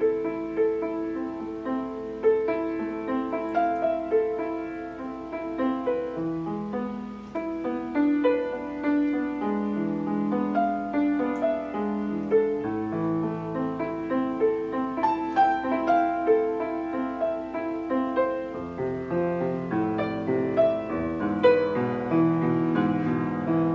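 Steinway piano playing a slow, flowing piece: single notes and chords struck one after another and left to ring.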